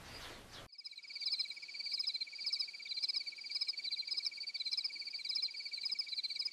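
Night chorus of calling insects such as crickets: a steady high trill with a quicker rhythmic chirping above it, cutting in abruptly under a second in.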